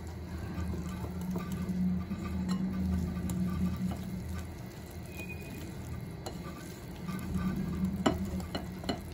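Wire whisk stirring flour into thick cake batter in a glass bowl, with a few sharp clicks of the whisk against the glass, loudest about eight seconds in.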